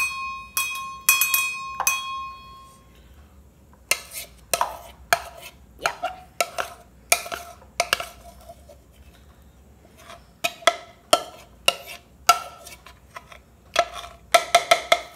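Small stainless-steel cups and a mixing bowl clinking together: a few ringing metal clinks at first, then a run of short, sharp knocks, a couple a second, as the bowl is tapped and scraped against the cups to empty the cake batter.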